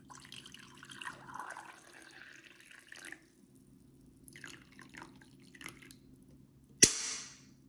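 Hot water poured from a kettle into a mug for about three seconds, then a few drips off the spout. Near the end a single sharp knock, the loudest sound, with a brief hiss after it.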